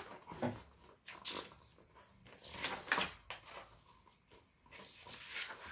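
Pages of a paperback picture book being opened and turned by hand, with several soft paper rustles and flaps.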